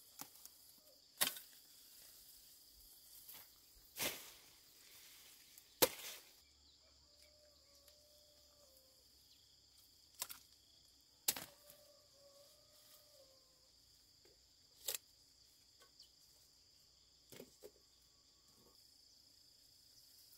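Several sharp, irregularly spaced snaps as plant stems are broken or cut off while crops are picked by hand in a hillside field. Behind them runs a steady high-pitched chorus of crickets or cicadas.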